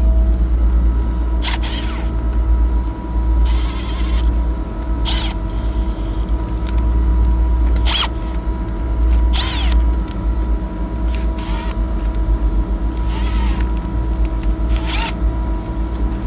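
Steady low hum of running air-cooled chiller machinery, with several constant tones, loud throughout. Over it come about a dozen short metallic clinks and scrapes at irregular intervals, some with a brief ringing: tools working the bolts of a freshly fitted oil filter cover.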